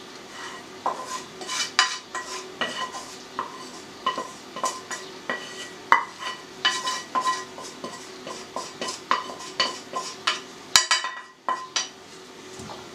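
Spatula scraping and knocking fried mushrooms and onion out of a frying pan into a bowl of mashed potato: an irregular run of clinks and scrapes, many with a short metallic ring, with a louder clatter near the end.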